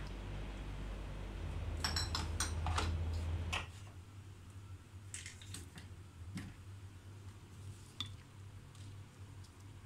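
Light clicks and clinks of kitchen containers and utensils being handled, with a quick run of them in the first few seconds and a few single ones later. A low hum underneath stops about three and a half seconds in.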